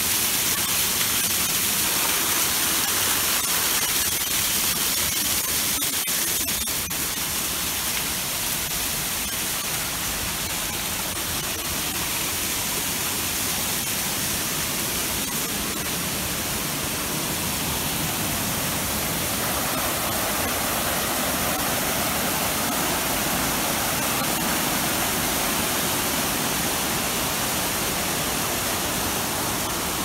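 Waterfall: a steady rush of water cascading over rock.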